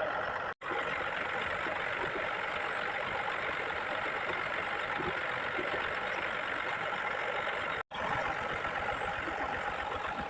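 Steady, loud mechanical running noise, a hiss-like rush without a clear engine beat, cutting out abruptly for an instant twice.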